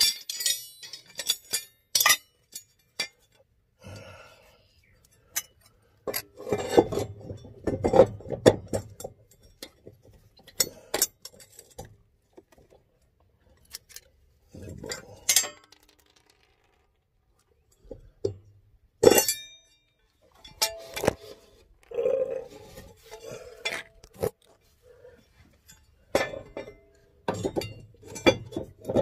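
Irregular metallic clinks and knocks of hand tools and mower blade parts being handled while a new blade is fitted, with patches of rattling handling noise between quiet gaps.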